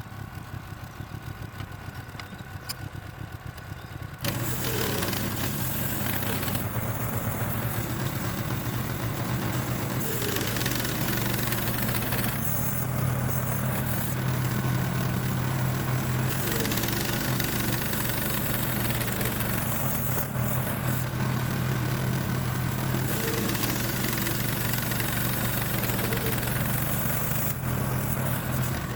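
Gasoline engine of a Harbor Freight bandsaw sawmill running, stepping up sharply in loudness about four seconds in and then holding steady as the mill saws a slab off an oak log.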